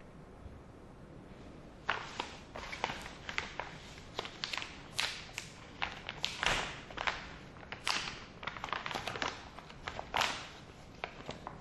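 Plastic stand-up pouch being handled, crinkling and rustling in irregular crackles that start about two seconds in.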